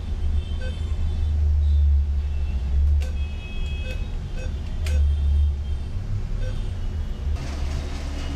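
Short electronic beeps from an ATM keypad as buttons are pressed, a dozen or so at uneven intervals, over a loud steady low rumble. A couple of sharp clicks come in the middle and a brief rushing noise near the end.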